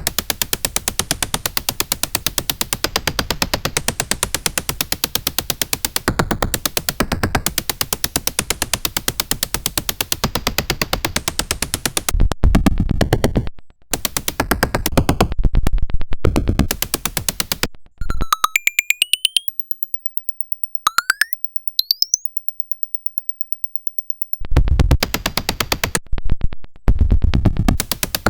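Paratek "Kosmicheskiy Shum" eurorack noise module, built from square-wave oscillators, putting out a harsh, rapid pulsing buzz. About twelve seconds in, the sound starts cutting in and out. Around two-thirds through come a few sliding pitch sweeps, first falling, then rising, before the loud pulsing returns near the end.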